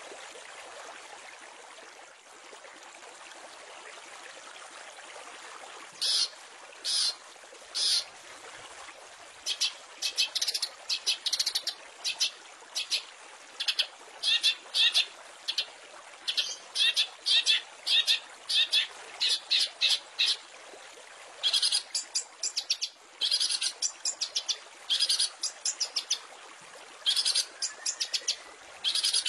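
Long-tailed shrike (cendet) singing in short bursts of rapid, harsh, high notes with pauses between them, starting about six seconds in over a steady background hiss.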